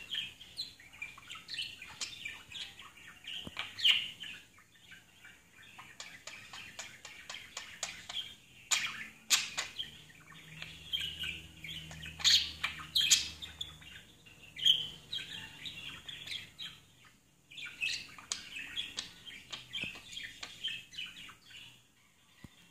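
Budgerigar chirping quietly: a steady stream of short chirps, clicks and warbled notes, with a few louder, sharper clicks here and there.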